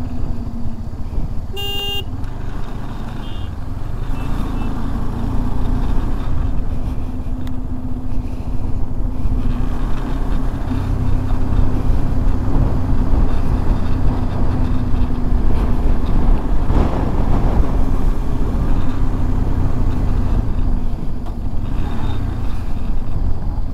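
Motorcycle engine idling steadily with a low drone, stopped in held-up traffic. A vehicle horn toots once, briefly, about two seconds in.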